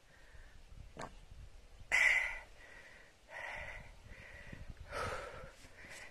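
A person breathing hard close to the phone's microphone while walking a hillside path: three short puffs of breath, the first the loudest, with a light click about a second in.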